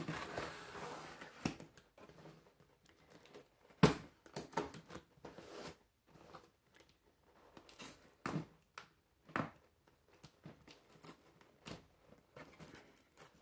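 Scissors slitting and cutting the packing tape on a cardboard box, with tape tearing and cardboard rustling. It opens with about a second and a half of scraping and tearing, then goes on as scattered sharp clicks and scrapes, the loudest about four seconds in. The scissors drag through the tape, dull enough that she thinks they need sharpening.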